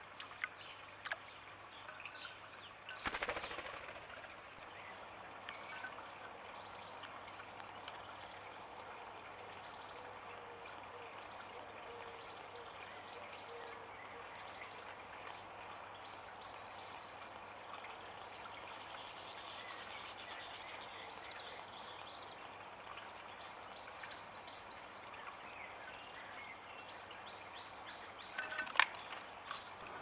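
Faint garden birdsong, scattered chirps with a rapid trill about two-thirds of the way through, over low steady background hiss. A short louder burst comes about three seconds in and another near the end.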